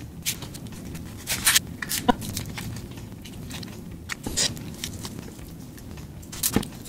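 Kitchen scissors snipping through a cooked king crab leg and the shell cracking apart, a handful of short, sharp crunches spaced a second or two apart.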